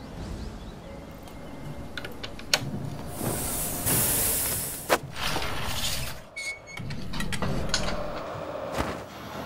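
A string of short workshop sound effects: scattered sharp clicks and knocks, and a loud hiss of air about three to four and a half seconds in as a pressure gauge is put on a tyre valve.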